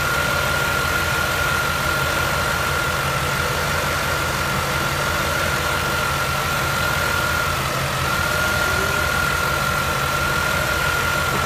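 1993 Cadillac Fleetwood Brougham's 5.7-litre V8 idling steadily, with a thin, steady high whine running over the engine's low pulse.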